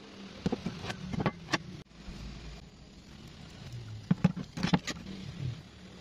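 Light clinks and knocks of steel parts being handled, a caster wheel's plate set against angle iron. They come in two clusters: about half a second to a second and a half in, and again between four and five seconds.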